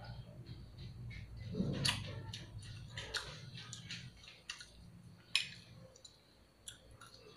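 Metal spoon clicking and scraping against a ceramic rice bowl at irregular intervals, with chewing in between, over a low steady hum.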